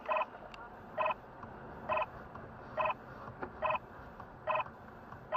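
Short electronic beeps repeating about once a second, seven in all, each a brief mixed chord of low and high tones over a faint steady background hum. The sound cuts off abruptly at the very end.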